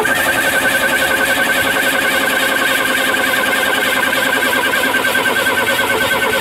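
Starter cranking the Ford 232 V6 steadily in an even, rapid rhythm, the engine turning over without firing on its freshly rebuilt 2150 carburetor.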